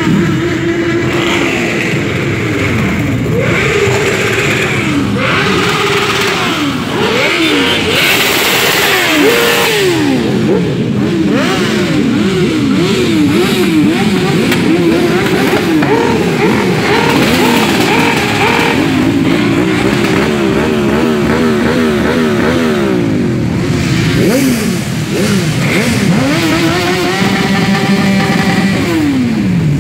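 A group of motorcycles riding past and among each other, many engines running at once and revving up and down in overlapping rising and falling pitches.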